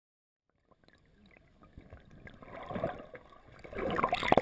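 River water sloshing and gurgling around a half-submerged camera, starting after a moment of silence and growing louder and choppier near the end.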